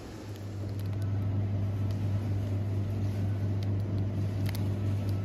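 Steady low electrical hum from refrigerated display coolers, getting louder about a second in, with a few faint clicks.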